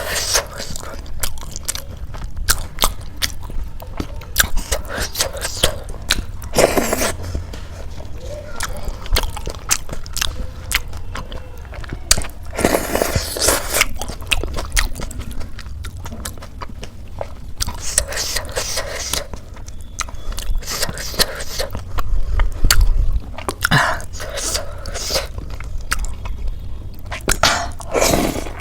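Eating sounds: chewing and crunching of flaky khasta samosa with ghugni. Many sharp mouth clicks, with a few louder crunching bites spread through.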